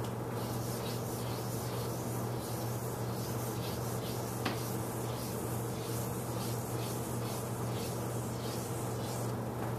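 Chalk scraping on a blackboard in quick, repeated strokes as a row of looping coils is drawn, over a steady low hum. A single sharp tick comes about four and a half seconds in.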